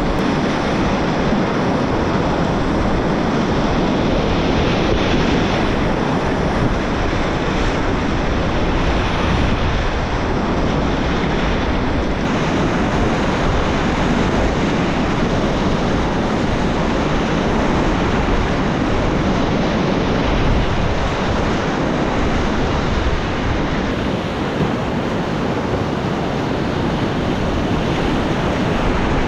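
Whitewater of a river in flood rushing steadily and loudly around a kayak, with wind buffeting the microphone.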